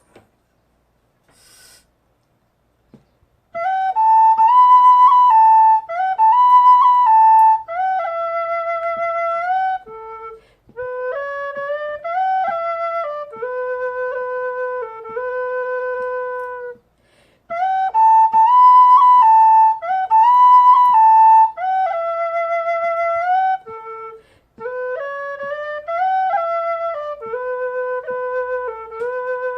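A bamboo alto Irish whistle in A plays a solo melody of held notes, starting a few seconds in. Some notes slide in pitch, there are short pauses between phrases, and the opening phrase is played a second time about halfway through.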